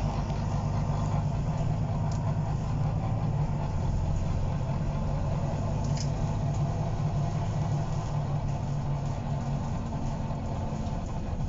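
Volvo B9TL double-decker bus's six-cylinder diesel engine running steadily with a low, even drone, heard from on board.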